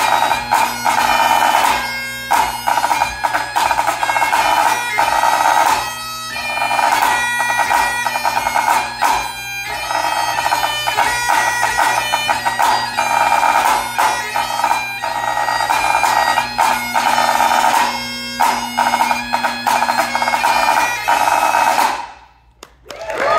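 Highland bagpipe playing a brisk tune over its steady drones, accompanied by a snare drum. The tune stops abruptly a second or so before the end, followed by a moment of near silence.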